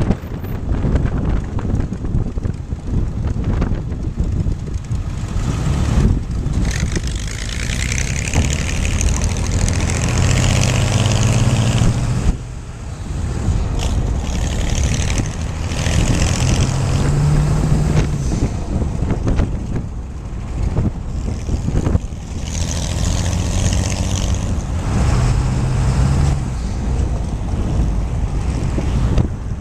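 Wind buffeting the microphone of a moving vehicle over a steady road rumble, with an engine note swelling and climbing a few times as it accelerates.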